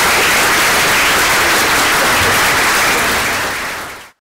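Audience applauding steadily, then fading out and cutting off near the end.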